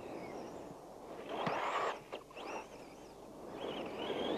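Outdoor ambience: birds chirping in short high calls over a steady rushing background, with a louder rush of noise about a second and a half in.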